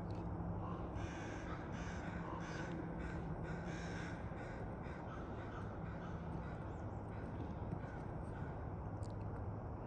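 Crows cawing: a quick series of harsh caws in the first half, a few fainter ones later, over a steady low hum.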